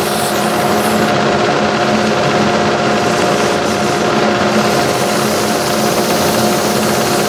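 Wood lathe running steadily, spinning an off-centre workpiece mounted on an offset chuck, with a steady hum of several tones. Abrasive cloth is held against the spinning wood, adding a steady hiss.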